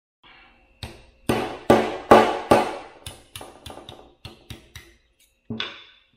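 Small sledgehammer striking a steel pin punch to drive the set pin out of a differential carrier: four heavy metallic blows, then a quicker run of about eight lighter taps. One more knock comes near the end.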